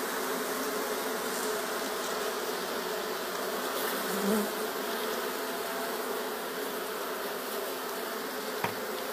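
Steady buzzing hum of a large honeybee colony clustered on its open combs, with a small brief sound about four seconds in.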